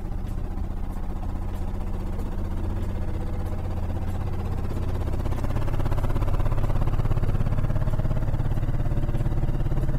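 LG Inverter DirectDrive 12 kg front-loading washing machine spinning its drum at medium speed (about 600 rpm) in test mode: a steady low hum and rumble that grows louder about halfway through. The machine stands on its standard feet on a wooden floor, the kind of spin noise the feet stoppers are meant to reduce.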